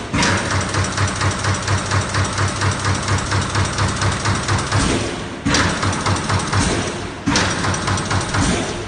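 Machinery running with a loud, dense noise and a low pulse about three times a second. The sound changes abruptly twice in the second half.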